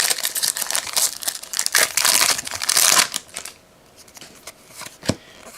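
Plastic wrapper of a trading card pack crinkling as it is torn open and handled for about three seconds, then quieter, with a couple of short taps near the end.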